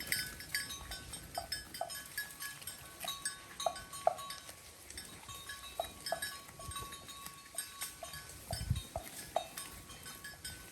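Bells worn by grazing cattle clanking irregularly, a couple of clinks each second, with a faint ringing tone held between them.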